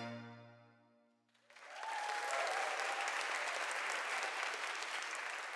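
The last held chord of a sung song with string orchestra fades out within the first second. After a brief hush, a congregation breaks into applause about a second and a half in, which carries on steadily.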